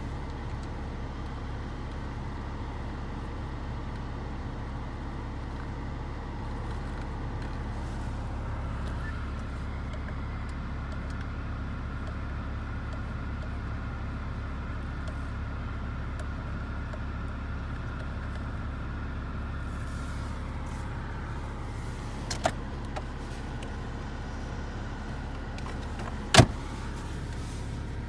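Skoda Octavia's 1.6 TDI four-cylinder diesel engine idling steadily, heard from inside the cabin as a low hum. Two sharp clicks come near the end, the second louder.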